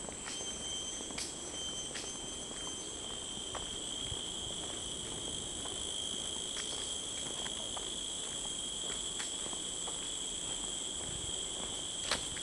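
Insects in the trees droning steadily, a continuous high-pitched buzz at two pitches, with scattered light footstep scuffs on a paved path and one sharper click near the end.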